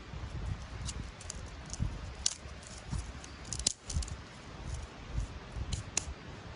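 Open wood fire crackling, with irregular sharp pops over a low rumble.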